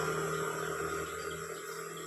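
A passing motor vehicle's engine fading steadily as it moves away.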